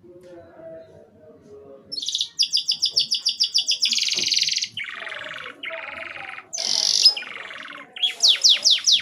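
Domestic canary singing, starting about two seconds in: a fast trill of repeated high notes, then rattling rolls lower down, and near the end a run of quick downward-sweeping notes.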